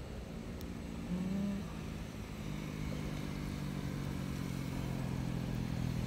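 A motor vehicle engine running, a low steady hum that first comes through about a second in and grows slowly louder.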